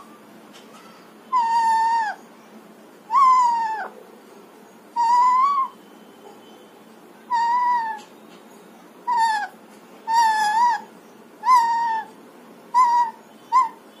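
Alexandrine parakeet calling: a series of about nine separate, drawn-out calls, each under a second long and falling in pitch at its end, spaced a second or two apart and getting shorter near the end.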